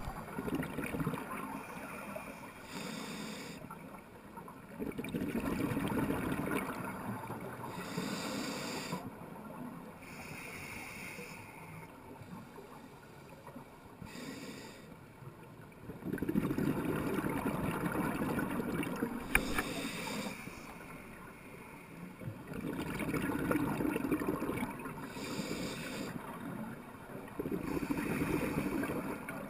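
Scuba diver breathing through a regulator, heard underwater through the camera's housing: a short hiss of inhaling, then a longer, louder rush of exhaled bubbles, the cycle repeating every several seconds.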